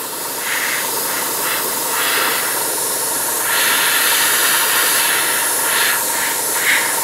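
Gravity-feed airbrush spraying thinned grey paint: a steady hiss of compressed air and paint from the nozzle, getting louder a little past the middle.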